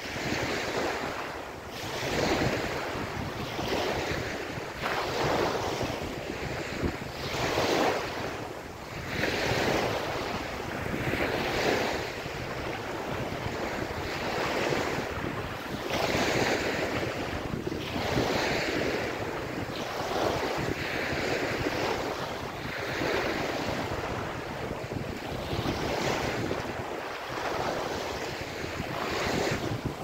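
Small ocean waves breaking and washing up a sandy beach, surging every two to three seconds, with wind rumbling on the microphone.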